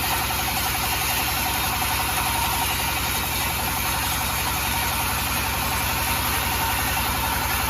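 Sawmill machinery running steadily while sawing a mahogany log: a low, even hum under a constant hiss, with no change in pitch or level.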